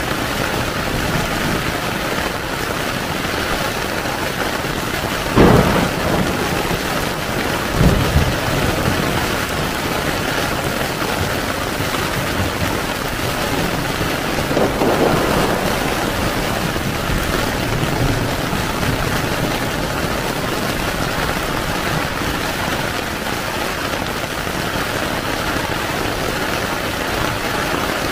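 Heavy rain pouring steadily on a tent, with two brief louder thumps about five and eight seconds in and a softer swell near the middle.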